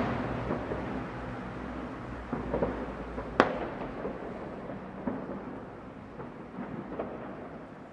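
New Year's Eve fireworks and firecrackers going off in many places at once: a continuous low rumble scattered with sharp pops and bangs. One sharp crack about three and a half seconds in is the loudest.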